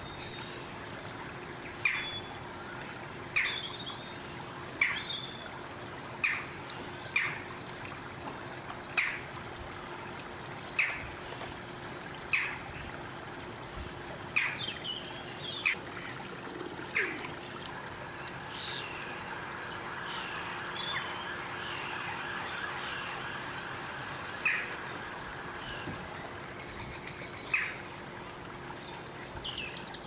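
A bird calling outdoors with short, sharp chirps repeated every one to two seconds, over a faint steady hum.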